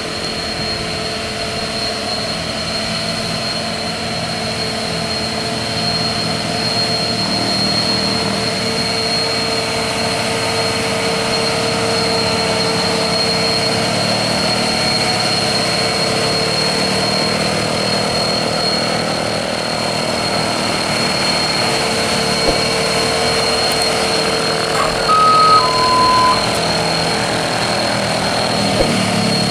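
Hino dump truck's diesel engine labouring up a steep hairpin climb under a heavy load, growing louder about six seconds in as it comes closer. A steady high whine runs over it, and a horn gives two short beeps, the second lower, about 25 seconds in.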